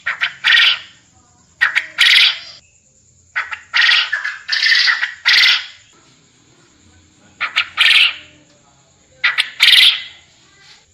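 Quail calling loudly in repeated phrases, each a quick short note or two followed by a longer harsh note, with a phrase every second or two.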